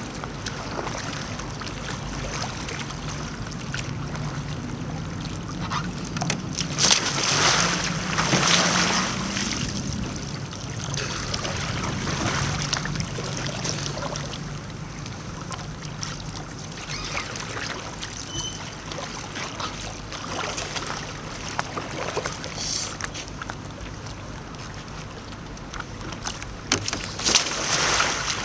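Water sloshing and paddle splashes around a sea kayak, with two loud bursts of splashing: one about seven seconds in, and one near the end as the kayak capsizes upside down for an Eskimo roll.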